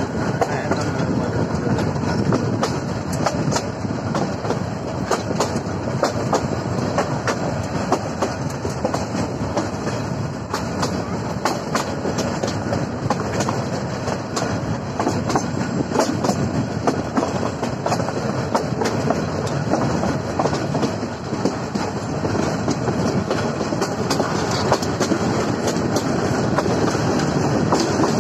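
Passenger train running along the track, heard from a coach window of the moving train: a steady rumble with frequent sharp clicks of the wheels passing over rail joints.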